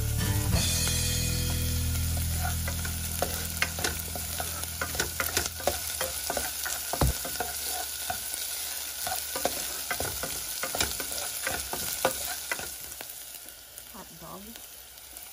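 Chopped onion and garlic sizzling in oil in a pot, stirred with a spoon that clicks and scrapes against the pot many times. A low steady hum fades out over the first couple of seconds, and the sizzle dies down near the end.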